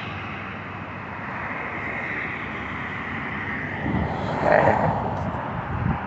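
Storm wind rushing over the phone's microphone, with a louder gust about four and a half seconds in.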